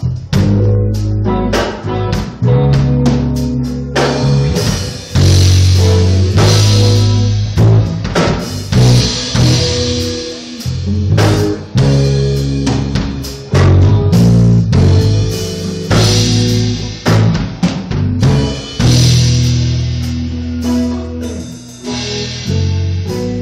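Live band playing an instrumental: electric lead guitar over an electric bass guitar and a drum kit, with strong bass notes and a steady beat of drum hits.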